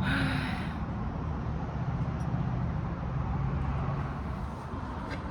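Road traffic noise: a steady low engine hum from vehicles, with a short hiss right at the start.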